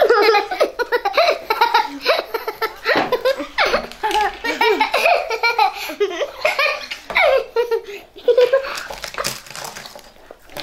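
Young girls laughing and giggling, high-pitched and on and off, growing quieter near the end.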